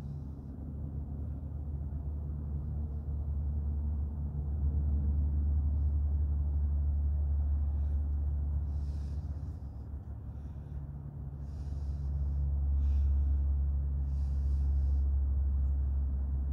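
Two large brindle guardian dogs, a Boerboel and a Serbian Defense Dog, play-wrestling with deep, continuous growling that swells and eases. From about halfway in, short huffs and snorts of breath come through.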